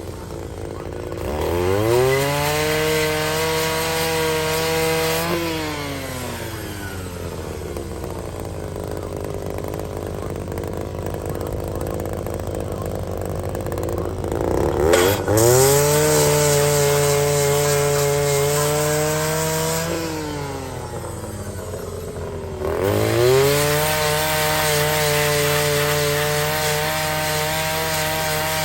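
Handheld grinder sharpening the teeth of a Denis Cimaf mulcher: three times the motor spins up, runs at a steady high pitch with a grinding hiss against the steel tooth, then winds down. A sharp knock comes just as the second run starts.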